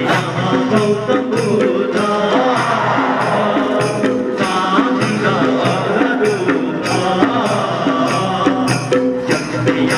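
Folk dance music with a steady percussion beat, about two strikes a second with a jingling, tambourine-like shake, under a pitched melody.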